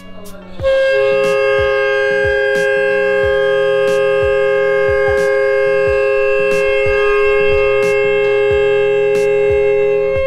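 A homemade horn made from a coiled hose with a funnel bell, blown like a trumpet, sounding one long, loud, steady held note for about ten seconds, with a second, lower tone alongside.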